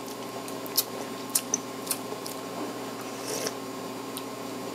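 Someone sipping stock from a small glass and tasting it: a few short wet lip smacks and clicks, with a brief slurp about three and a half seconds in, over a steady low hum.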